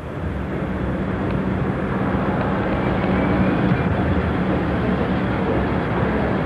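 A removal lorry's engine running, growing louder over the first two seconds and then holding steady with a low hum.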